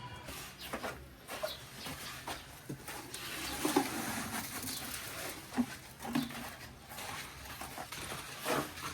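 Scattered short animal calls among light knocks, clicks and rustling.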